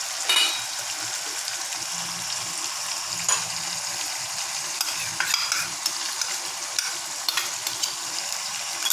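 Chicken pieces sizzling in hot oil in a pan, a steady frying hiss, while a spatula stirs them, scraping and clinking against the pan: one ringing clink about a third of a second in, another about three seconds in, and a run of clinks in the second half.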